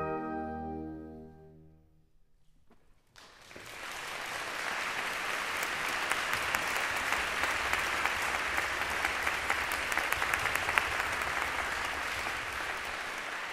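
A wind orchestra's final held chord fades away over the first two seconds. After a second of silence, applause starts about three seconds in and goes on steadily.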